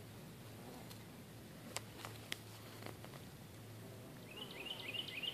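Faint buzzing of bees foraging low over henbit flowers, with a few sharp clicks in the middle. Near the end a small bird calls a quick run of about six short rising chirps.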